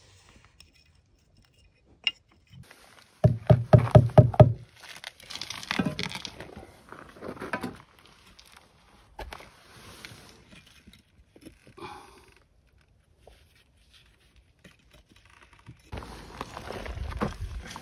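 Concrete block wall work: a quick run of about seven loud knocks a few seconds in, then irregular scraping and tapping as a concrete block is set in mortar, with a longer stretch of scraping noise near the end.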